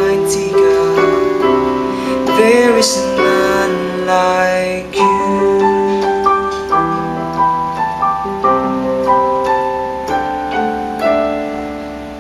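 Electronic keyboard playing a slow worship-song passage in a piano voice: a melody of separate struck notes over held chords, growing quieter toward the end.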